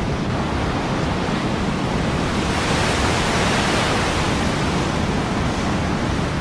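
Ocean surf: a steady wash of waves that swells as a wave breaks about two and a half seconds in, then eases.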